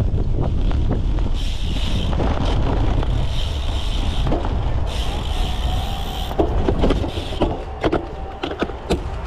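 Cyclocross bike racing over rough ground, heard from a camera on its seat post: heavy wind rumble on the microphone, with a high hiss that comes and goes twice, and sharp rattles and knocks from the bike bouncing over bumps in the last few seconds.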